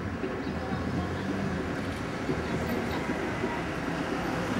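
City street traffic noise: a steady low hum of vehicles on the road.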